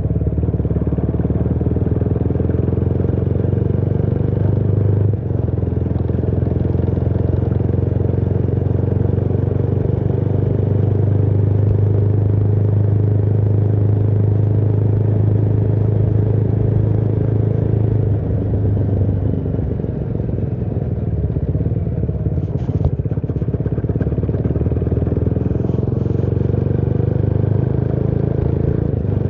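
Motorcycle engine running at a steady cruising pace, heard from on the bike. The engine note dips briefly about five seconds in and eases off about two-thirds of the way through.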